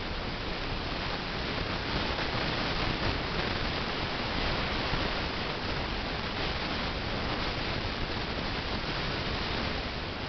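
Steady rushing whoosh of a desktop computer's cooling fans running during boot. The noise is even throughout, with no clicks, beeps or tones.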